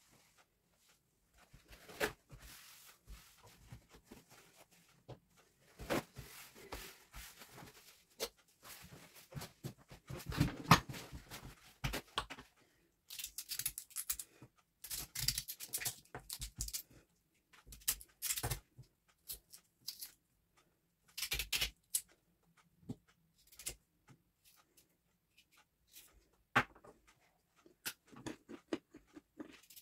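Paper napkins rustling and a knife scraping and cutting a raw cabbage stalk, heard as a string of irregular scrapes, clicks and rustles with the loudest bursts around ten and fifteen seconds in.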